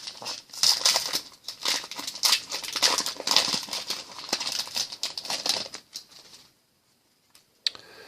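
Crinkling of a foil trading-card pack wrapper being handled and opened, stopping about six and a half seconds in; a single sharp click follows near the end.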